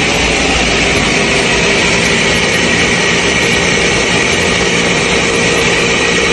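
Countertop blender running steadily at speed, a constant whirring motor, as it purées oat milk and strawberries.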